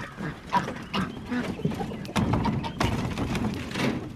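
Geese honking in a mobile coop, mixed with scattered knocks, clicks and footsteps.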